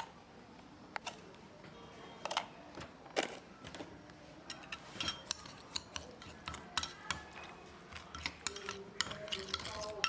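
Utensils clinking and tapping against a dish in irregular, sharp clicks, coming thicker in the second half.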